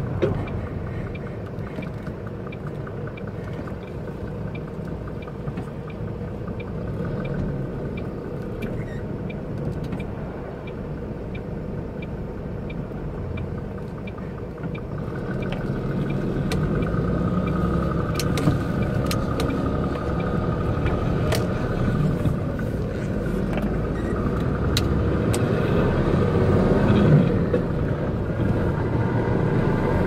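Inside the cab of a MAN concrete mixer truck on the move: steady diesel engine and road rumble, with a turn-signal ticking about twice a second for the first several seconds. About halfway through the engine grows louder.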